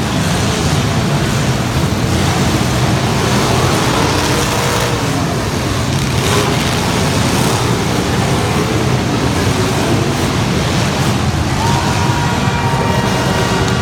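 Competition truck engines running loud and steady, a dense wash of engine noise with no letup.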